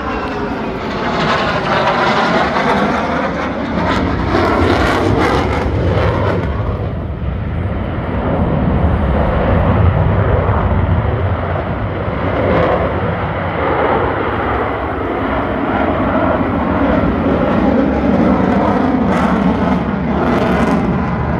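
Military display aircraft flying past, with loud, continuous engine noise and a sweeping, phasing tone in the first few seconds as it passes.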